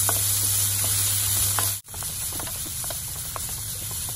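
Red bell pepper strips sizzling in olive oil in a nonstick frying pan, stirred with a wooden spatula that gives small taps and scrapes against the pan. The sound cuts out for an instant a little under two seconds in, then goes on slightly quieter.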